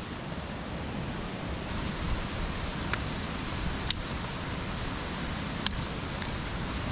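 Dry sticks snapped by hand for kindling: four sharp cracks in the second half, two of them loud, over a steady rushing background noise.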